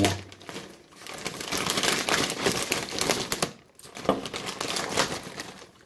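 A knife slitting open a plastic poly mailer bag: the plastic crinkles and rasps with quick scratchy clicks, in two spells with a short pause about three and a half seconds in.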